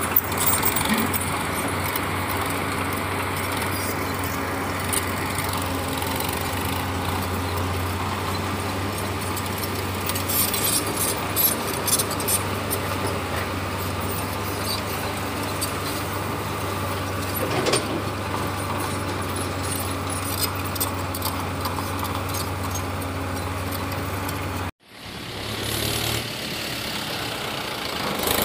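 Diesel engine of earth-moving machinery running steadily, with scattered knocks and clanks. About 25 seconds in the sound cuts off abruptly, and a different engine sound then builds up.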